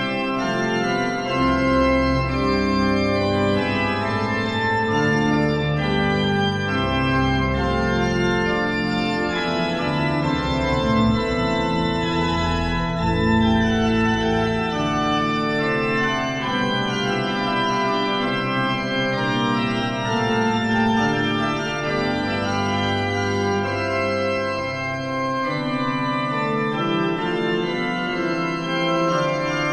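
Pipe organ music played on a Hauptwerk virtual pipe organ (sampled organ pipes): sustained full chords with many overtones, over deep pedal bass notes through much of the passage.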